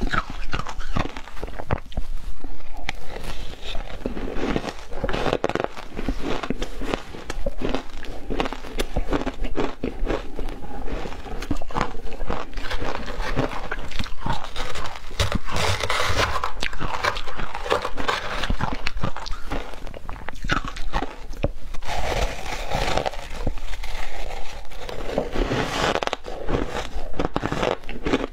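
Close-miked crunching and chewing of shaved ice dusted with matcha powder, eaten by the spoonful from a metal spoon: a dense run of sharp, crackly bites throughout.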